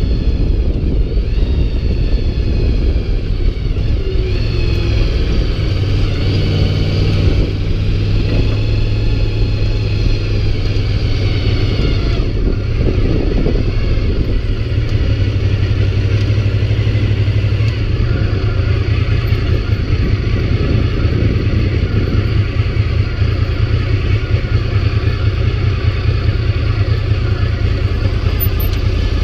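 Honda VFR motorcycle's V4 engine under way, rising in pitch several times as it accelerates through the gears over the first dozen seconds, then running more steadily, over a heavy low rumble.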